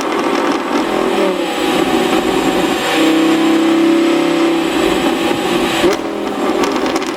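Audi R8 5.2 FSI V10 engine revving, holding a steady pitch for about a second and a half before the revs drop. A sharp crack from the pop-tuned exhaust comes about six seconds in, as the revs fall.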